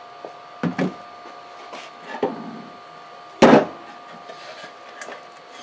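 Wooden boards handled on a wooden tabletop: a few knocks and thuds, the loudest about three and a half seconds in, over a faint steady tone.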